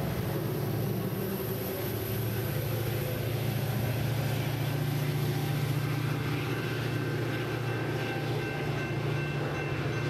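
Coaster commuter train passing and pulling away, its EMD F40PH-2C diesel locomotive running under power with a steady low engine rumble.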